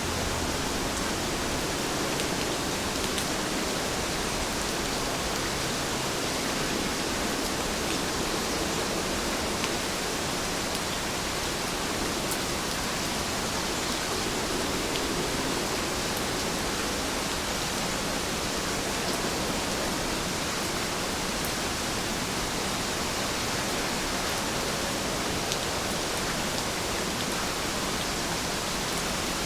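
Heavy rain falling steadily: a dense, even hiss with a few faint ticks of individual drops scattered through it.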